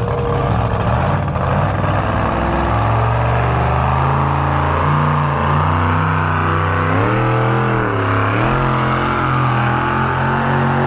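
Modified pulling tractor's engine running hard as it drags a weight-transfer sled down the dirt track. The pitch holds steady, sags and recovers about seven to eight seconds in, then climbs again near the end.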